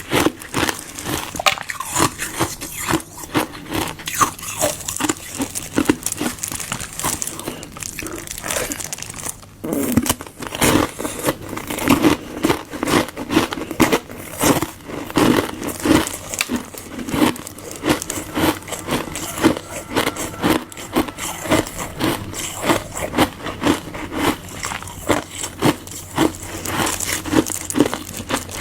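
Close-miked crunching and chewing of ice frozen from Fanta diluted with water, crisp cracks and grinding with a steady chewing rhythm of about two bites a second after a short pause about a third of the way through.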